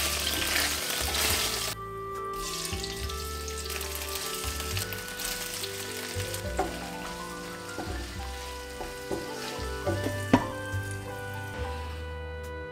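Garlic cloves sizzling in hot olive oil in a frying pan, loud for the first two seconds, then a quieter steady frying hiss as sun-dried tomatoes, olives and capers cook, with a few sharp clicks. Background music plays along, and the frying fades out near the end.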